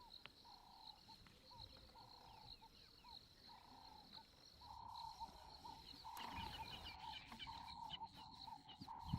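Faint wild-animal ambience: a short call repeated about every second and a half over a steady, high insect-like trill with scattered chirps, growing a little louder about six seconds in.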